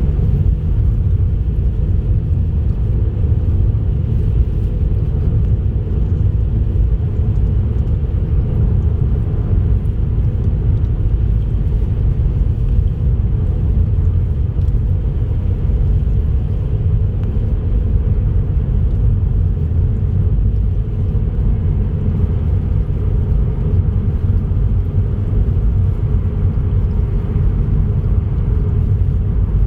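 Steady low rumble of a car driving at road speed, engine and tyre noise with no changes.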